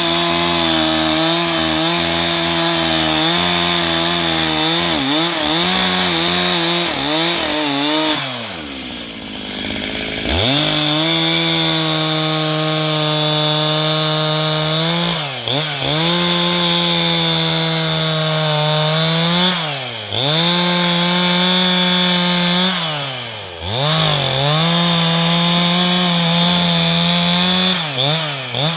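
Stihl MS 361 two-stroke chainsaw running at high revs while cutting red eucalyptus wood. Its pitch dips and recovers several times, and about eight seconds in it drops almost to idle for a couple of seconds before revving back up.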